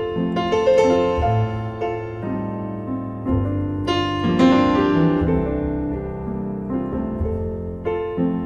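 Background piano music: slow chords and melody notes struck and left to ring.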